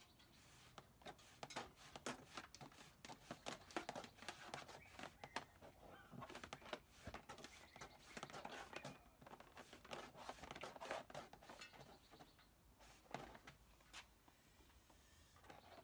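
Faint scattered rustling and small clicks of hands handling wire at the tailgate wiring harness, as a license-plate wire is worked through the harness.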